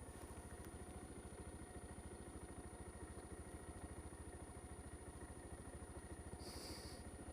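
Honda Z125 Monkey's single-cylinder four-stroke engine idling steadily at a standstill, left running, with an even low putter. A brief hiss about six and a half seconds in.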